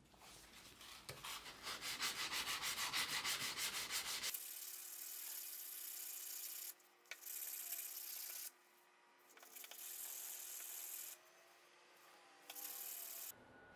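Steel knife blade rubbed by hand on abrasive paper, thinning the edge to its final thickness. Quick, even back-and-forth strokes come first; from about four seconds in there are longer, smoother passes with short pauses between them.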